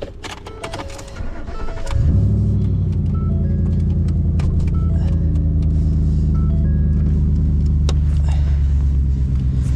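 A few clicks and knocks, then about two seconds in a truck engine comes up to a loud, steady raised speed and holds there. Faint short beeps repeat over it.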